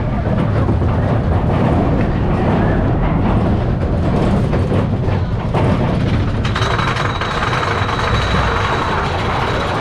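Mine-train roller coaster cars running along the track with a loud, constant rumble and rattle. About six and a half seconds in, a steady high-pitched whine joins the noise.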